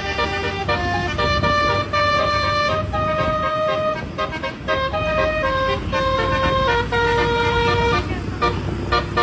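Basuri bus horn playing a melody of held notes, one note after another, over a steady low rumble.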